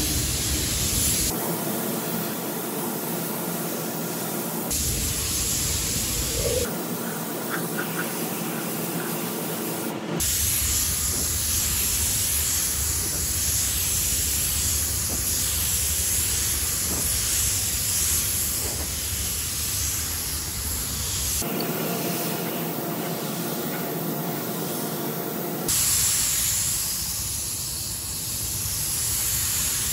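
Gravity-feed spray gun hissing as it lays the second coat of acrylic paint on a truck cab. The hiss changes abruptly several times as the sound cuts from one stretch of spraying to the next.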